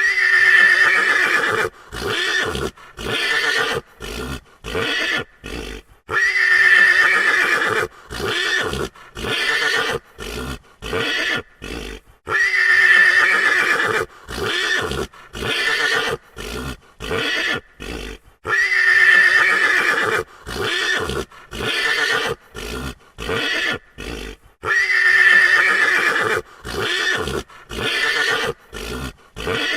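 A frightened horse whinnying: one long, loud neigh followed by a rapid string of short, clipped calls. The same sequence repeats about every six seconds.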